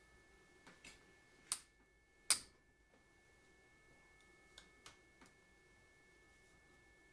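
A few sharp clicks and taps of hand tools and small engine parts during disassembly. The two loudest come about one and a half and two and a half seconds in, with fainter ticks around five seconds in.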